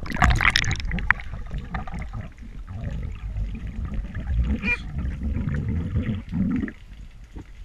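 Underwater sound through a GoPro's waterproof housing as a freediver swims down: a loud burst of noise at the start, then a muffled low rumble of moving water with scattered clicks and a brief high warble a little before the five-second mark, quieting near the end.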